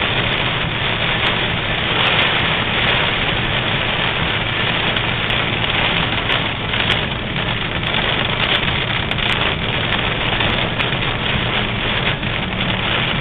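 Heavy rain and hail pelting a car's roof and windshield, heard from inside the cabin: a dense steady downpour with scattered sharp individual hits.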